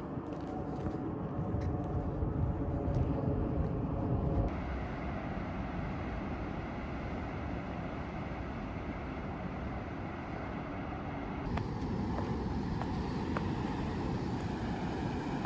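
Outdoor ambience: a steady rushing noise, with a distant engine hum of several held tones over the first few seconds. The background changes abruptly twice where takes are cut together.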